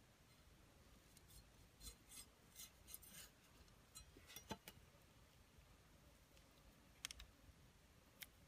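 Faint cutting strokes of a large cleaver slicing through a lime onto a woven tray, several quick strokes in the first few seconds, followed by a few sharp clicks of the blade.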